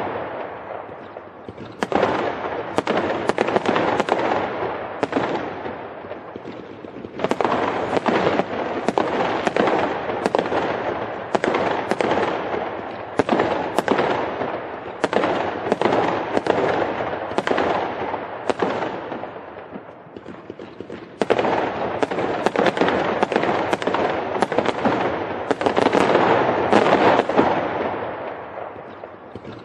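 Fireworks crackling: a dense, unbroken run of rapid sharp bangs. It swells suddenly louder about two, seven and twenty-one seconds in and fades off between.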